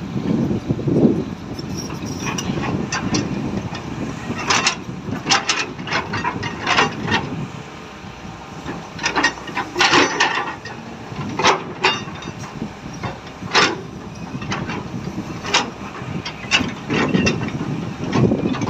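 Excavator at work: a low engine rumble with a run of sharp, irregular knocks and clatters through the middle, the loudest about halfway through.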